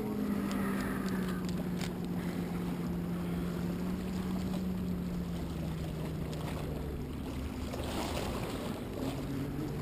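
Motorboat engine droning steadily, its pitch slowly falling as it passes, with wind rumble on the microphone beneath.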